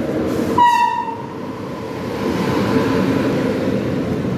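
Electric trains running through a station with a steady rumble, and a short horn toot about half a second in, with another toot starting at the very end.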